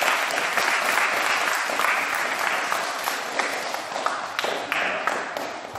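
A group of people clapping in applause, dying down into a few separate claps near the end.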